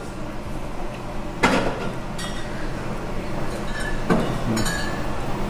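Kitchen handling sounds from a glass mixing bowl as kombu and a silicone spatula are worked in it: one sharp clink about a second and a half in, then a couple of lighter knocks near the end, over a steady low hum.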